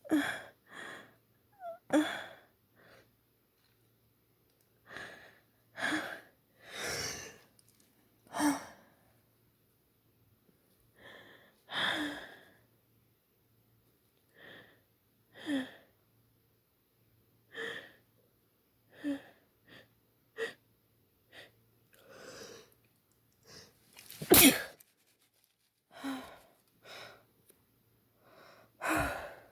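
A woman sneezing again and again: wet, spraying sneezes, with short breaths between them. The loudest sneeze comes about three-quarters of the way through, and another strong one comes near the end.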